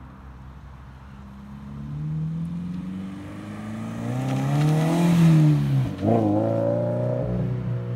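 Scion FR-S's boxer four-cylinder, with its muffler deleted, accelerating hard past, its exhaust note rising in pitch and loudness to a peak about five seconds in. The note breaks off sharply for a moment about six seconds in and comes back at a lower pitch, fading as the car pulls away.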